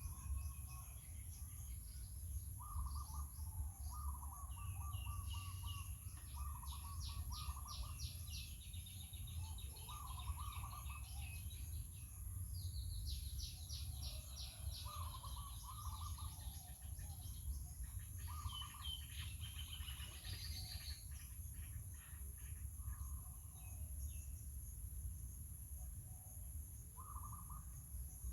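Birds chirping and trilling in repeated short phrases, some high and some lower, over a steady low rumble and a constant high hiss.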